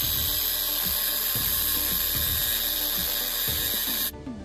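Angle grinder with a cut-off disc cutting through a metal bar, a steady high-pitched whine that cuts off suddenly about four seconds in.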